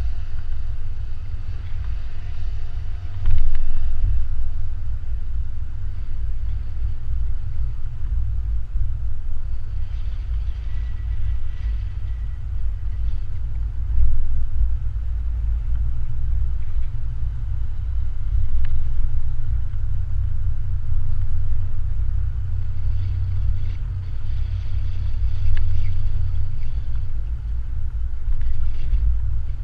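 Steady low rumble of a vehicle driving slowly on a town street, picked up by a camera mounted outside on its hood, with a louder surge about three seconds in and another about halfway through.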